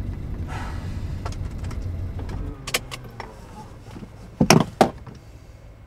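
Low rumble of a car interior that falls away about two and a half seconds in, followed by a few sharp clicks and two louder knocks a couple of seconds later.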